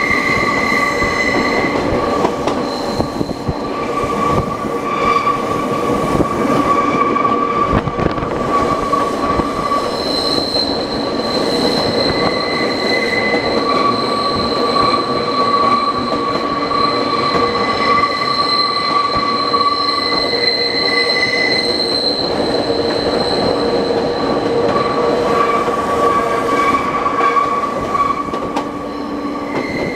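Nankai Koya Line train running on its steep, sharply curved mountain section: a steady rumble of wheels on rail, with a high wheel squeal on the curves that fades in and out. A few rail-joint clacks come in the first several seconds.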